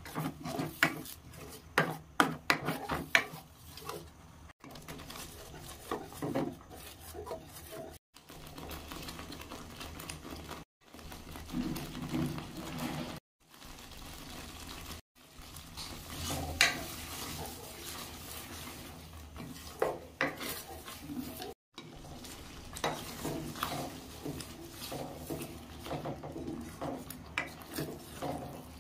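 A steel spoon stirring thick spinach gravy in a steel pan, with repeated clinks and scrapes of metal against the pan. The sound breaks off abruptly several times.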